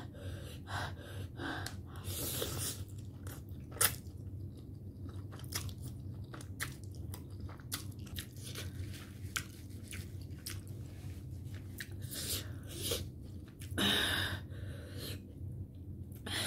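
Close-up mouth sounds of a person eating instant ramen noodles: chewing and slurping with many short wet clicks. One louder, longer noisy sound comes about fourteen seconds in.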